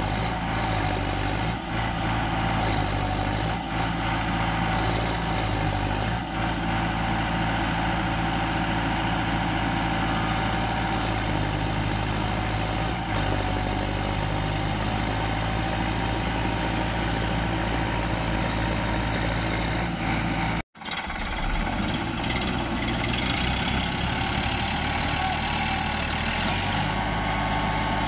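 Sonalika tractor diesel engines running steadily under load while a tractor bogged in mud is pulled out with a belt. The sound cuts out for an instant about two-thirds of the way through, then the engines carry on.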